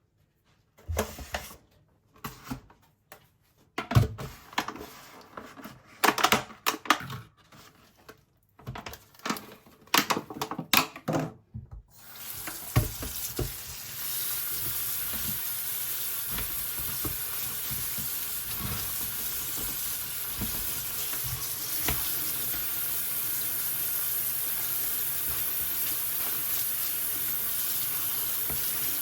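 Kitchen tap water running steadily into a sink for the second half, after about twelve seconds of scattered knocks and light clatter from items being handled.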